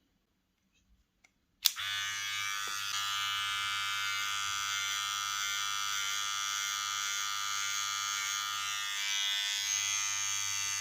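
VGR V905 hair trimmer switched on with a click a little under two seconds in, then running with a steady buzz.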